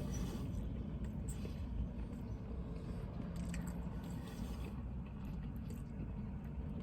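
A person chewing a mouthful of grilled chicken wrap, with small wet mouth clicks, over a steady low rumble.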